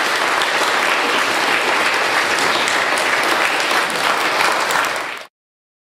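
An audience applauding, a dense, steady patter of many hands clapping. It cuts off suddenly about five seconds in.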